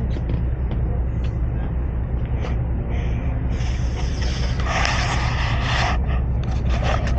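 A boat's engine running with a steady low drone. A hissing rush rises over it about three and a half seconds in and lasts a couple of seconds.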